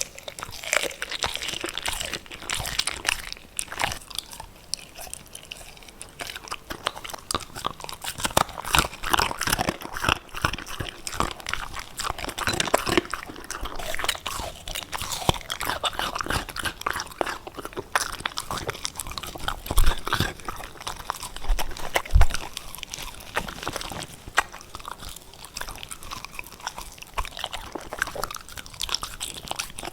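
A puppy crunching and chewing hard cookies, with rapid crisp crunches throughout and a couple of heavier knocks about two-thirds of the way through.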